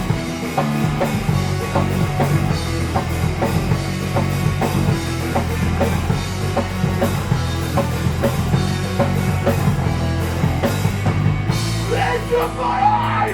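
Rock band playing live without vocals: a drum kit keeps a steady, driving beat under bass and guitar. The drum hits drop away near the end, leaving sustained notes ringing.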